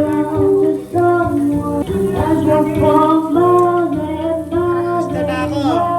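Music: a woman singing long, gliding notes over an instrumental backing.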